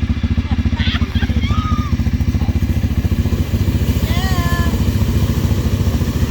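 A vehicle engine idling steadily with a fast, even low pulse. A voice calls out briefly about one second in and again about four seconds in.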